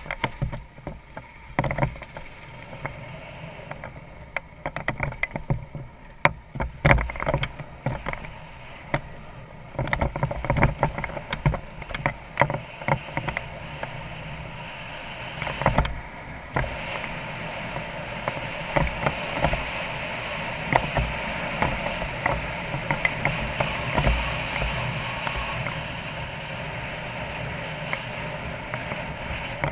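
BMW F650GS Dakar's single-cylinder engine running as the motorcycle rides over a gravel track, under wind and road noise on the camera microphone, with frequent knocks and rattles from stones and bumps. The wind and road noise grow louder and steadier about ten seconds in.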